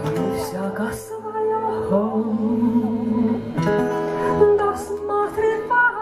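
Live band starting a song: acoustic guitar chords over electric bass, the chords changing about every two seconds.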